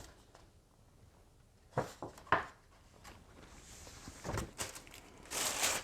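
Books and packaging being handled: a few light knocks and taps, then a brief rustle of wrapping near the end.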